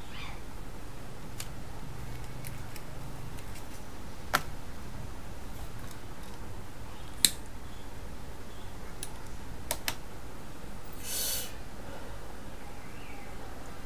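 A handful of sharp, scattered clicks, the loudest about seven seconds in, followed by a short rustling burst near the end, over a steady low hum.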